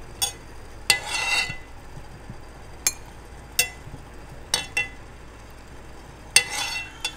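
Steel slotted skimmer clinking against a stainless steel saucepan and a ceramic bowl while boiled dough dumplings are scooped out of the water and tipped into the bowl. There are several sharp, irregular clinks, two of them followed by a short swish as the skimmer moves through the water.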